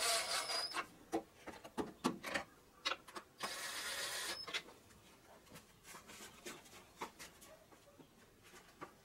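Cordless impact driver spinning valve cover bolts down in two short runs of about a second each, one at the start and one about three and a half seconds in, stopped before its hammering action kicks in. Light clicks in between.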